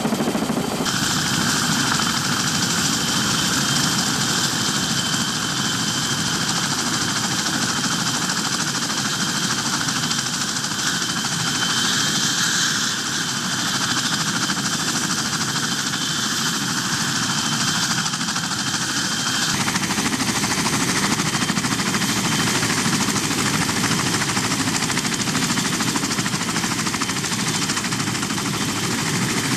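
CH-46E Sea Knight tandem-rotor helicopter running close by: steady rotor and engine noise with a thin, steady high whine. The noise changes abruptly about a second in and again about two-thirds of the way through.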